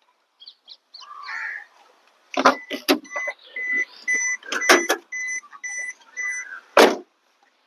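Maruti Suzuki Wagon R's warning chime beeping in short, even beeps about two a second, among a few sharp clicks and knocks, with a heavier thump near the end.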